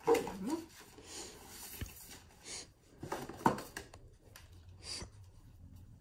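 A cardboard box being opened and a fabric bodysuit drawn out of it and unfolded: scraping and rustling of card and cloth, with a few sharper knocks, the loudest about three and a half seconds in.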